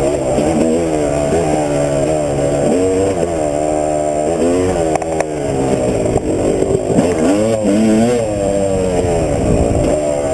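2005 Yamaha YZ250 single-cylinder two-stroke dirt bike engine, fitted with an FMF Q Stealth silencer, revving up and down with the throttle as the bike is ridden along rough singletrack. There are a couple of sharp knocks about halfway through.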